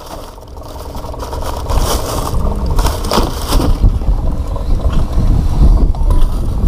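Uneven low rumble with scattered knocks, scrapes and rustles as a caught fish is handled into a plastic cooler box.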